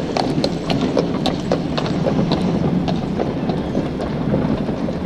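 Street traffic with trams and horse-drawn drays: a steady low rumble of wheels under a run of sharp, irregular clacks, dense for the first two seconds or so and thinning out toward the end.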